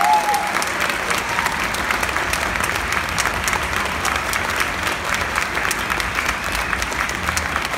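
Audience applauding steadily: dense, continuous clapping from a full hall.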